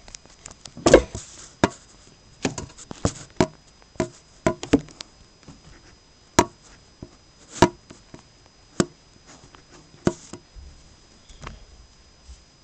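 Irregular sharp knocks and taps, about a dozen, the loudest about a second in.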